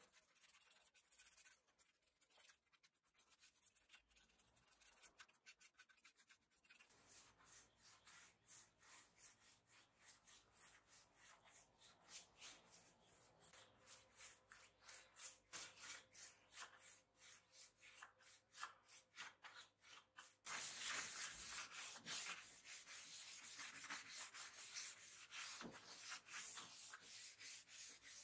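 Repeated rubbing strokes on wood, about two a second: a brush working stain along a table edge, then a cloth or pad rubbed across a bare pine top. The strokes are faint at first and grow much louder about two-thirds of the way in.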